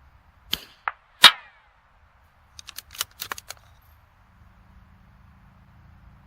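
A single .22 LR rimfire rifle shot from a bench rest rifle, sharp and short with a brief ring, about a second in, just after two smaller clicks. Around three seconds in comes a quick run of metallic clicks from the rifle's bolt being worked.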